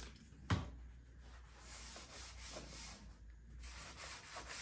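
A trigger spray bottle of isopropyl alcohol spritzes with a short sharp sound about half a second in. Then a paper towel rubs back and forth in scratchy strokes, wiping a surface down to degrease it.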